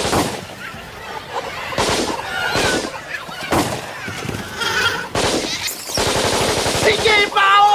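A string of gunshots from a pump-action shotgun and rifle, roughly one a second, each with a short echoing tail. Shrill cries come between the shots and bunch together near the end.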